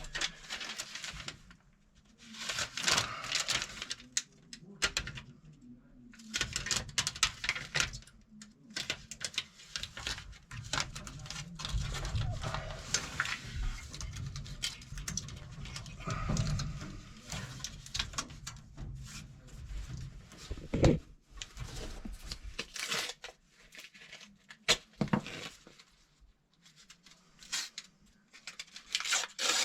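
Tape being pulled off a roll and torn, with crackly rustling and sharp clicks of hands working around the damper and its wiring.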